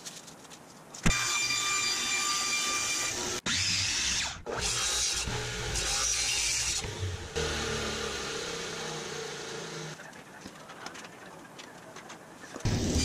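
Electric saw running and cutting wooden template pieces, with a steady motor whine heard in short clips that break off abruptly about three and a half and four and a half seconds in. A lower-pitched machine sound takes over about seven seconds in, and it goes quieter near the end.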